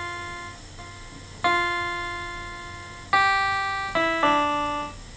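MK-812 61-key electronic keyboard playing a handful of single notes on its piano voice, each struck sharply and left to fade before the next, at an unhurried pace.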